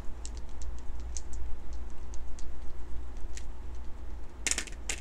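A few small wooden astrology dice rattling and clicking together while shaken in a cupped hand, then tossed onto cards on a table with a louder clatter near the end.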